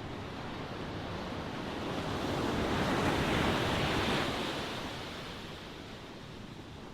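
Ocean waves: one wave swells, breaks and washes out, loudest a few seconds in, then recedes into a steady surf hiss.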